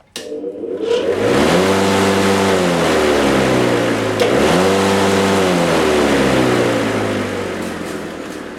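AL-KO 40E electric lawn mower's asynchronous motor and blade starting up and running freely, the humming-without-spinning fault cured. It comes up to speed within about a second, dips briefly around four seconds in and recovers, then winds down near the end.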